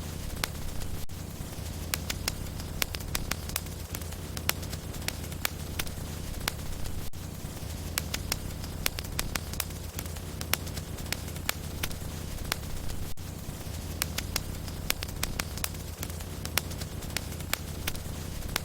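Wood fire burning in a fireplace, crackling: frequent sharp pops and snaps from the burning logs over a steady low rumble.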